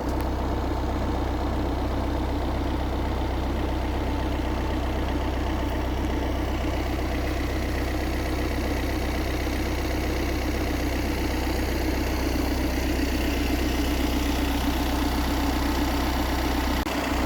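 Engine running steadily with an even low hum, briefly dipping near the end.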